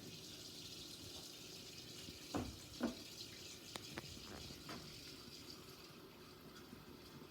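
Kitchen tap running water into a stock pot, filling it; the rush of water eases off about six seconds in. Two louder knocks a little after two seconds in and a few light clicks.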